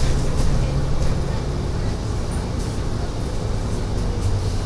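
Mercedes-Benz Citaro city bus heard from inside the cabin while driving: a steady low engine drone with road noise, and a few light clicks.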